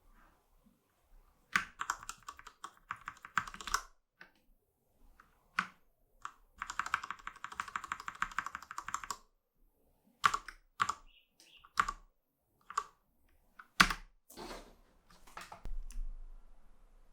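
Cherry MX Board 1.0 TKL mechanical keyboard with Cherry MX Red switches being typed on. Two bursts of fast keystrokes are followed by a string of single key presses, about one every half second to second, with one sharper strike near the end.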